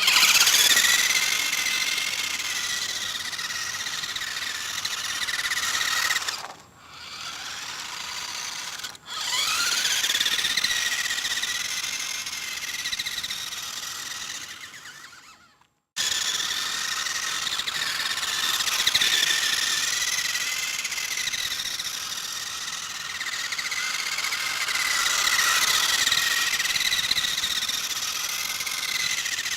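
Electric motor and gearbox of a 1984 Nikko Big Homer 1:18-scale RC buggy whining as it runs, the pitch wavering with load. It drops out twice for a moment and spins back up with a rising whine. About halfway through it cuts off sharply, then starts up again.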